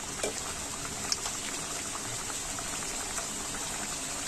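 Stuffed kachoris deep-frying in hot oil in a wok: a steady sizzle with many small crackles, and one sharper pop about a second in.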